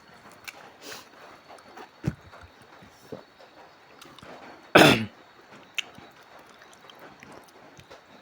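A person coughs once, short and sharp, about five seconds in, between faint small mouth and eating clicks.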